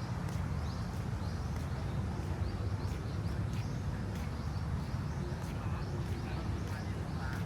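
Footsteps at a steady walking pace, about every half second, over a low steady rumble, with short chirping bird calls.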